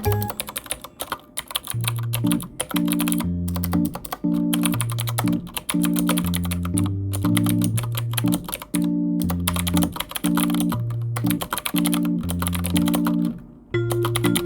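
Computer keyboard typing, a quick run of key clicks with short pauses between words, over background music with a repeating low chord pattern.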